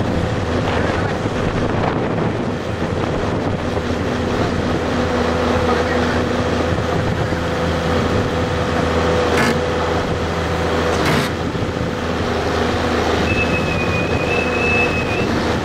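Tracked hydraulic excavator's engine running steadily, with two sharp knocks about nine and eleven seconds in and a short high, slightly wavering tone near the end.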